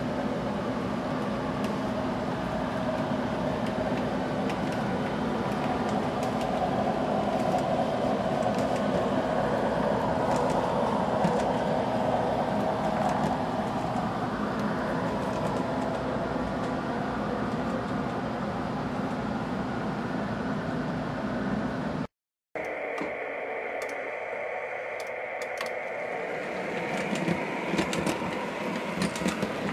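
Model electric trains running on the layout's track: a steady motor hum with wheel-on-rail noise, swelling about ten seconds in. After a cut about two-thirds through, the sound thins and a few sharp clicks of wheels over rail joints come in near the end.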